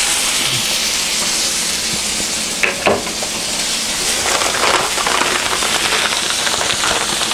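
Hamburger patty sizzling on a hot stovetop griddle just after being flipped: a steady frying hiss with spitting crackles that grow busier about halfway through. A couple of sharp clicks come a little under three seconds in.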